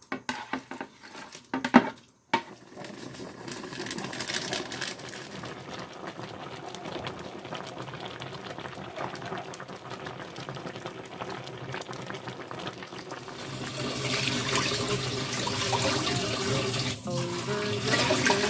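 A few light knocks, then a steady rush of water that grows louder about thirteen seconds in as water pours into a pan. A song starts near the end.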